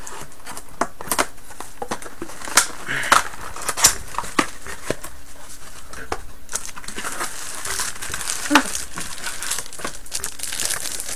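Packaging crinkling and rustling as a small box is opened and its contents unwrapped by hand, with many sharp crackles and a few louder snaps throughout.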